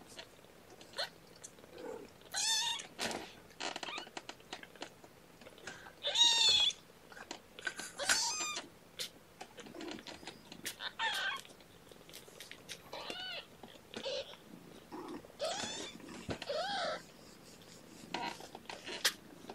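Kittens a little over two weeks old mewing: repeated short, high, squeaky calls, a second or a few seconds apart, with faint clicks in between.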